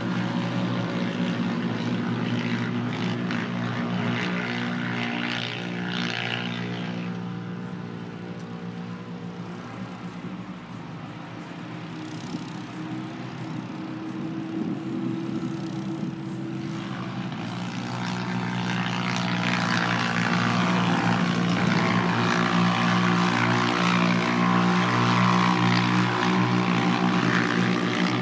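A drone's propellers humming steadily, with the off-road race cars' engines running underneath. The sound dips a little in the middle and swells louder about two-thirds of the way in.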